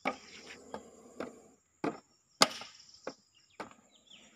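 Metal snake hook knocking and scraping a plastic jar over bare rock while prodding it to tip out a captured cobra. Several sharp, uneven knocks with scraping between them, the loudest about two and a half seconds in.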